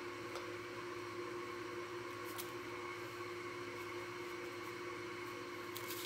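Steady machine hum, with a few faint light ticks.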